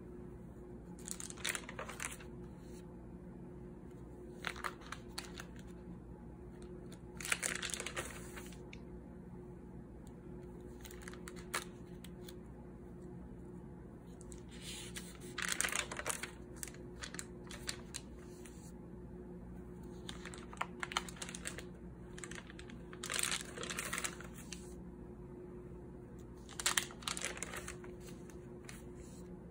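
Paper pages of a spiral-bound notebook being turned by hand: a short papery rustle every three to four seconds, about eight in all, over a faint steady hum.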